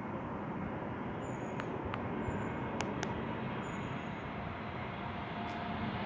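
Distant rumble of an approaching Airbus A321neo's jet engines, growing slowly louder, with a faint steady whine coming in over the second half. A few short high chirps and clicks sound over it.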